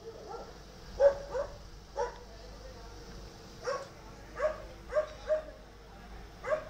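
A dog barking, about eight short barks at uneven intervals.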